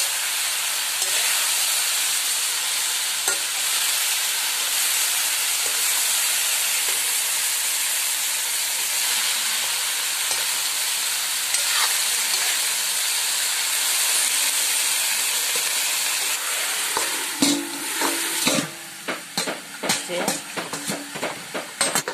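Taro stems and roselle leaves sizzling in hot oil in a metal wok as they are stir-fried with a steel spoon. About three-quarters through the sizzle drops away, leaving a run of sharp metal clinks and knocks against the wok.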